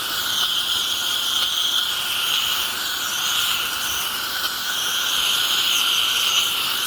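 Pressure washer jet spray hissing steadily as the water hits the pavers.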